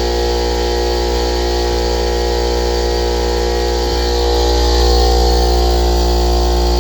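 Electric air compressor running steadily: a Ridgid motor and pump mounted on a larger Craftsman tank. It makes an even, pitched mechanical hum that grows a little louder about four seconds in.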